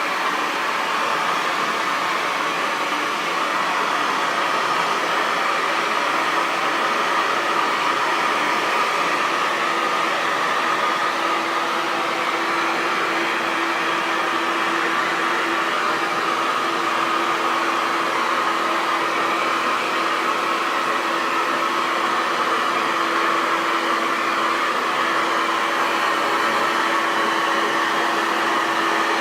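Hair dryer running continuously, a steady even rush of blown air with a faint motor hum underneath.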